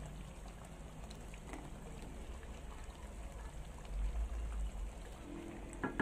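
Water dripping and trickling from freshly drained, parboiled rice in a strainer into the pot of hot cooking water beneath, a steady light patter, with a low bump about four seconds in as the strainer is handled.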